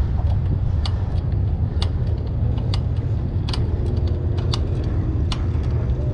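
Wind rumbling on a bike-mounted camera's microphone while riding, with the rental bike's front rack and frame clicking and rattling irregularly over the cracked pavement.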